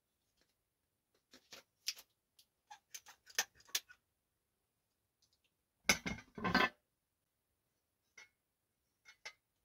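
Scattered clicks and light knocks from handling a caulking gun and a black steel stove-pipe section at a wood stove, with a louder clatter of knocks about six seconds in.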